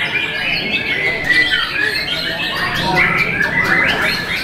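Many caged white-rumped shamas (murai batu) singing at once: a dense, unbroken tangle of overlapping whistles and quick rising and falling phrases.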